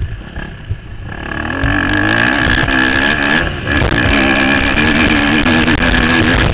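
Motocross dirt bike engine running hard under throttle. It is quieter for the first second, then rises loud and high as the bike climbs a steep hill. It dips briefly about halfway through, then pulls high again and eases off at the very end.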